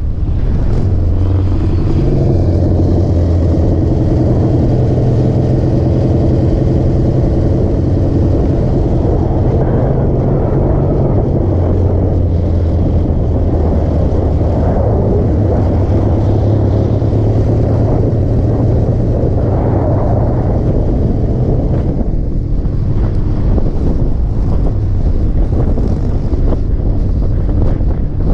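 Motorcycle engine running at road speed, with wind rushing over the microphone. The engine note holds steady, shifts about twelve seconds in, and falls away about twenty-two seconds in, leaving mostly wind.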